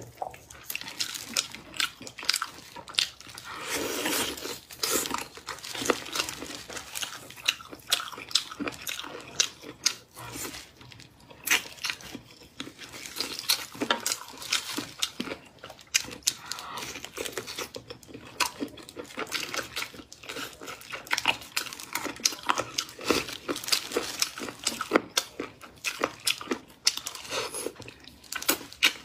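Close-miked eating of spicy meat on the bone: wet lip smacks, sucking and chewing, with meat being torn apart and disposable plastic gloves crinkling. A dense run of sharp little clicks and crackles with no pauses.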